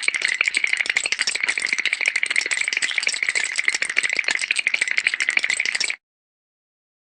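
Rattle sound effect: a dense, fast rattling that holds steady and stops abruptly about six seconds in.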